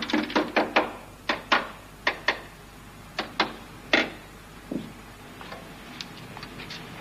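Hammer tapping sheet steel on a car body, fitting a repair panel in place before welding. A quick run of sharp metallic taps comes first, then single and paired taps further apart, and lighter taps near the end.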